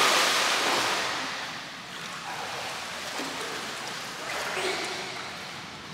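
Water splashing and sloshing in an indoor swimming pool, loud at first and fading over the first couple of seconds into a steady hiss.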